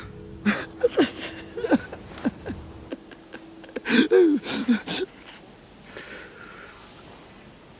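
A badly wounded man groaning and gasping in pain: strained, wavering cries and hard breaths in two clusters, the first about half a second in and the second, loudest, about four seconds in. A low held music drone runs underneath and stops about three seconds in.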